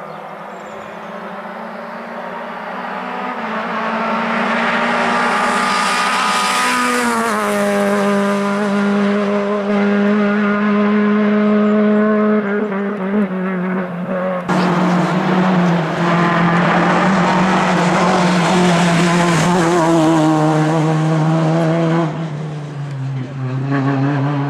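Lada VFTS rally car's four-cylinder engine at high revs, growing louder as the car approaches, with the pitch dropping about seven seconds in. After a sudden jump in level about halfway through, it runs at high revs again and drops in pitch near the end.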